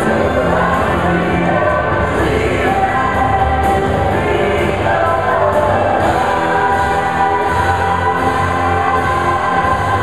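Live concert finale: many singers singing together as a chorus over a full band.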